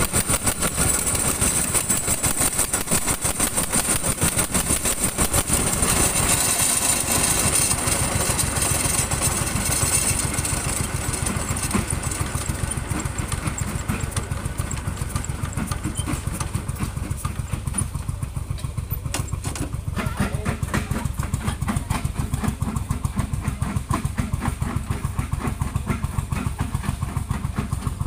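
Engine running steadily with an even, rapid firing beat. A high hiss over it dies away about twelve seconds in.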